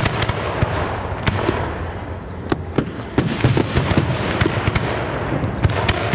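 Aerial fireworks display: shells bursting in a quick, irregular run of sharp bangs and crackles over a steady low rumble.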